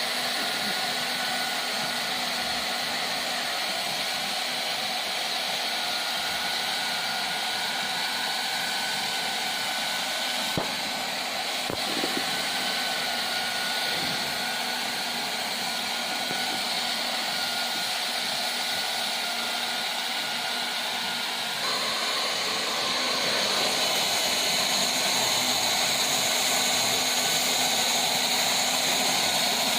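Hot air welding gun blowing steadily while vinyl floor seams are heat-welded: an even fan hiss with a faint steady whine. About 22 seconds in it gets slightly louder and brighter.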